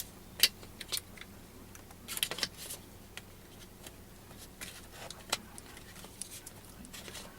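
Scattered light clicks and small rattles of AR-15 rifle parts being handled and fitted together, with a short cluster of clicks about two seconds in.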